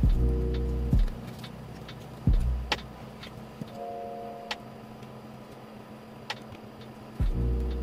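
Lo-fi chillhop background music: deep bass notes that come and go, a short higher chord about four seconds in, and scattered soft clicks.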